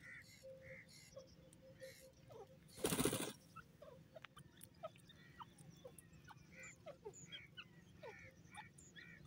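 Grey francolin giving soft, short calls, often in pairs, while it moves over dry ground. A brief loud rustle comes about three seconds in.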